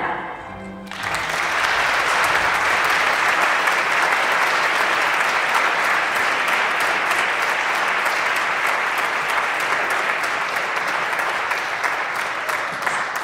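Audience applauding, starting about a second in, holding steady and tapering off near the end.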